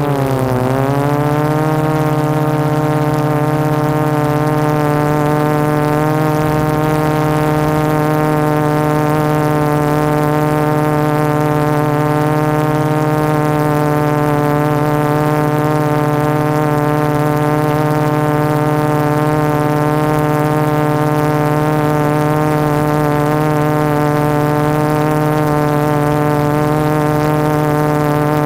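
Quadcopter's brushless motors and 12-inch carbon-fibre propellers running in a hover, a steady buzzing tone with many overtones. The pitch dips briefly in the first second, then holds.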